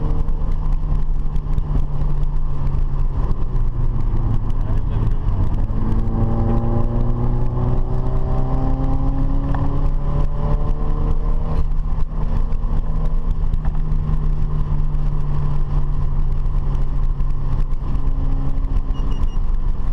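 Car engine running steadily over heavy low road and wind rumble. Its pitch climbs for several seconds in the middle as it accelerates, then breaks off with a click about twelve seconds in.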